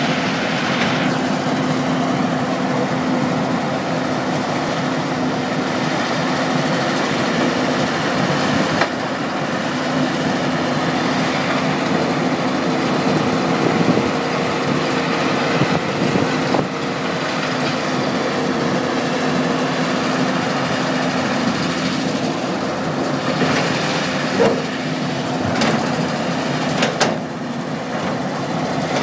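A tracked mobile rock crusher and the excavator feeding it run together: a steady diesel machinery drone with a constant low hum. A few sharp knocks cut through it, one about nine seconds in and several close together near the end.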